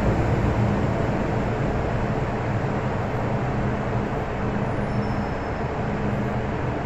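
MTR M-train electric multiple unit running into an underground station and slowing: steady rumble of wheels on rail with a low motor hum, heard through the platform screen doors and easing off gradually as the train loses speed.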